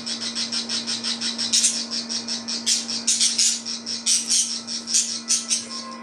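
Budgerigars chirping in a fast, unbroken run of short high chirps, about ten a second, with louder bursts through the middle, stopping just before the end. A low steady hum sits underneath.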